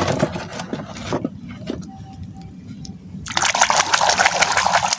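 Hand splashing and swishing a toy in a plastic basin of muddy water, a loud steady splashing that starts suddenly about three seconds in. Before it, a few light knocks and rustles from handling the toys.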